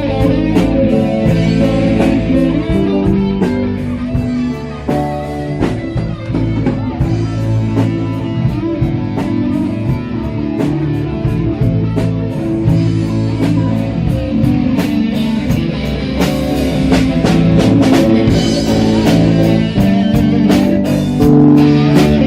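Live band playing an instrumental passage: guitar over bass and a drum kit, with a steady beat and no singing.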